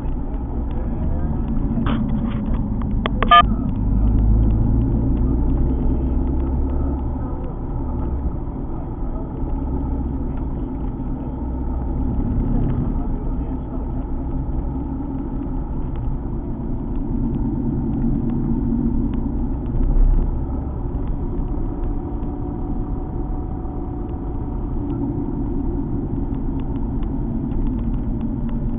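Alfa Romeo 147 GTA's 3.2-litre V6 running with steady road and tyre rumble, its note rising and falling gently. A sharp click about three seconds in and a low thump about twenty seconds in.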